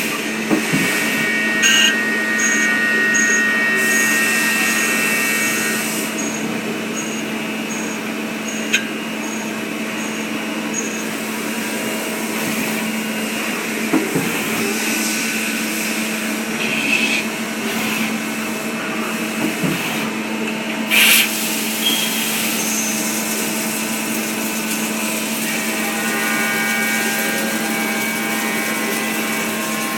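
CNC lathe running: a steady machine hum with high whining tones over it and a few sharp knocks. For several seconds in the first part there is a run of short high beeps, about two a second.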